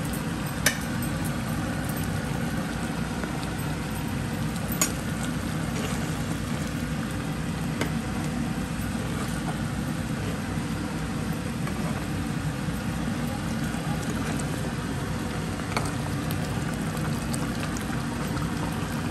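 Mutton braising in a pot of korma, a steady low bubbling and sizzling, with a few sharp clicks scattered through it.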